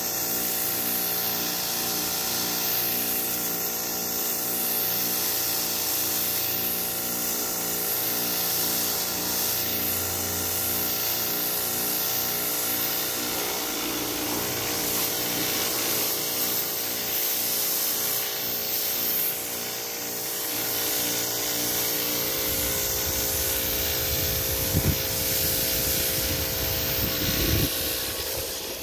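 Pressure washer jet spraying against a boat hull: a steady hiss of water with a constant hum underneath. A low rumble joins in over the last few seconds.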